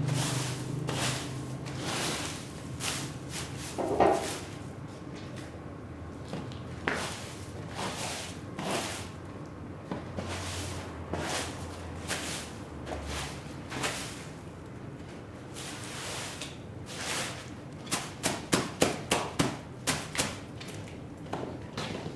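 Scattered knocks and thuds of a heavy, dirty rug being handled and struck, with one loud knock about four seconds in and a quick run of about eight sharp strikes, roughly three a second, near the end.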